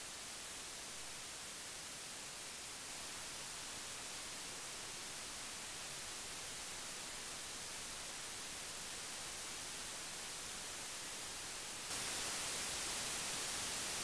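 Steady hiss: the noise floor of audio-interface mic preamps with a Shure SM7B dynamic microphone connected, played one interface after another. The hiss steps up noticeably louder about twelve seconds in as the next interface's noise floor takes over.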